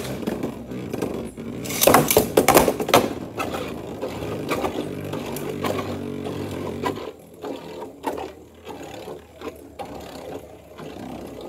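Two Beyblade Burst spinning tops whirring and scraping round a plastic stadium floor, clashing with a run of sharp clacks about two to three seconds in; the whirring gets quieter after about seven seconds.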